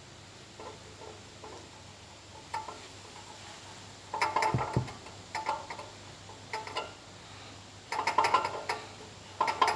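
Metallic knocking and rattling from a Peugeot 2008's exhaust silencer, in short irregular bursts of clanks with pauses between them. The bursts begin about four seconds in and the loudest come near the end. The knocking is the sign of a damaged silencer mounting.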